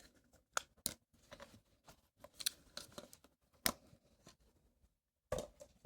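Scattered sharp clicks and short rustles of small objects being handled, with about five distinct knocks spread over a few seconds and faint scraping between them.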